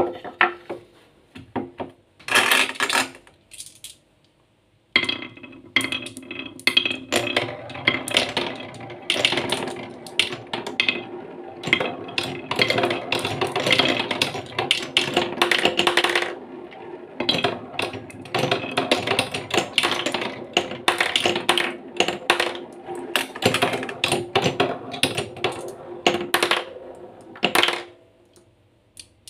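A glass marble spinning round a wooden funnel bowl cut in stepped concentric rings, rattling continuously over the ridges with a steady ringing tone for over twenty seconds. It cuts off suddenly near the end as the marble drops through the centre hole. A few wooden clacks come first, then a short pause before the spinning starts.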